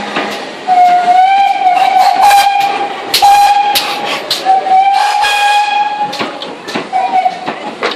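GWR Hall class 4-6-0 steam locomotive's whistle sounding in four blasts of varying length, the first rising slightly in pitch as it opens. Sharp hisses of steam come between the blasts.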